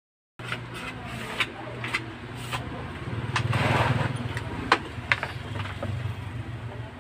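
Scattered knocks and clicks of a plastic TV panel being handled, over a steady low engine hum. A brief swell of noise, the loudest part, peaks about halfway through.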